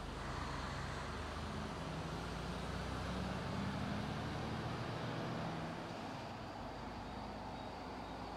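Truck engine and tyre noise on the road, with a low engine note that fades about six seconds in.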